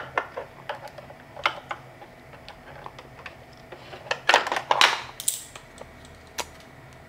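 Hard plastic clicks and clacks as an old battery pack is worked free of its catch and lifted out of a Xiaomi robot vacuum mop's battery compartment. The loudest cluster of clacks comes about four to five seconds in.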